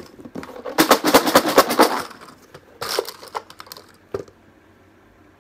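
Raffle draw box being shaken: a rapid rattling clatter of the pieces inside for about a second. A shorter rattle and a few separate knocks and clicks follow as the box's lid is handled.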